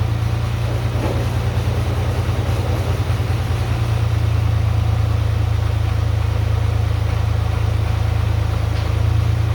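Dump truck engine running steadily with a low, even throb.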